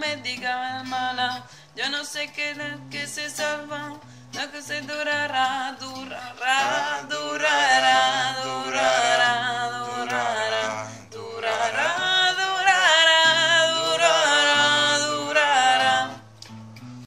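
Acoustic guitar played under wordless singing. The wavering voice grows louder and fuller about six seconds in, then falls away near the end.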